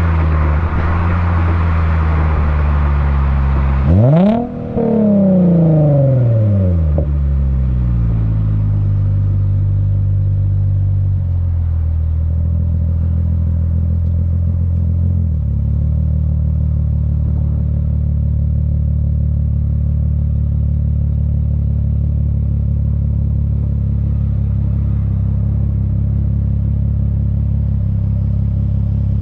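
Lexus IS350's 3.5-litre V6 heard right at the tip of an HKS Hi Power catback exhaust with an Invidia midpipe. The revs fall as the car slows, jump sharply about four seconds in, then drop away again in steps. The engine settles to a steady idle for the second half once the car has stopped.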